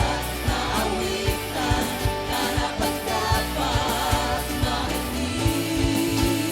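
Contemporary Christian worship song with a sung vocal over sustained bass and a steady kick-drum beat.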